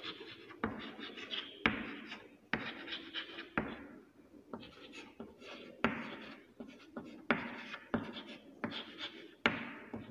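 Chalk writing on a chalkboard: a series of sharp taps as the chalk meets the board, each followed by a short scratchy stroke, about one a second, with a quieter spell midway.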